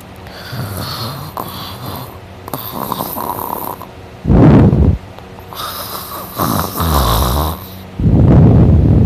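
A sleeping person snoring while lying on their back. Two loud, low snores come about four seconds apart, the first about four seconds in and the second near the end, with quieter, airy breaths between them.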